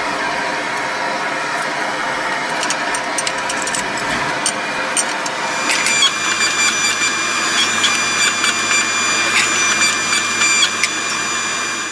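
Hydraulic forging press's electric motor and pump running steadily. About six seconds in, a higher whine and a low hum join as the press squeezes the hot steel, with scattered small ticks over it.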